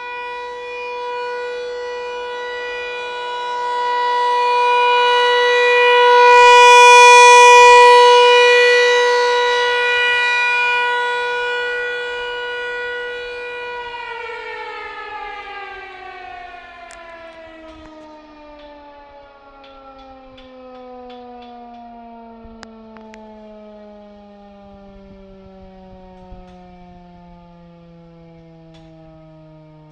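American Signal T-128 outdoor warning siren holding a steady tone that swells loudest about seven seconds in, then winding down from about halfway on, its pitch falling steadily and its sound fading as the rotor coasts to a stop at the end of the test.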